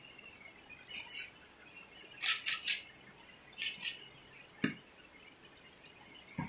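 Light metallic clicks and clinks from small metal parts of a cold spark machine being handled and fitted, in short clusters, with a duller knock about two-thirds of the way through.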